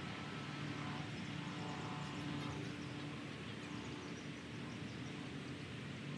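Steady outdoor background noise: a low hum with faint, scattered high chirps.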